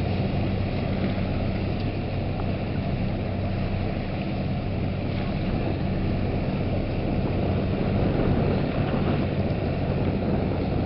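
An unmarked military motorboat's engines running at a steady drone as it cruises past, with wind on the microphone.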